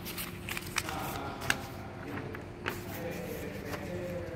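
Scattered light clicks and rustles of handling over a steady low hum.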